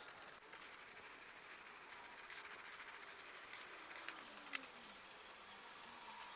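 Aerosol spray-paint can hissing as paint is sprayed onto a steel frame, with a sharp click about four and a half seconds in.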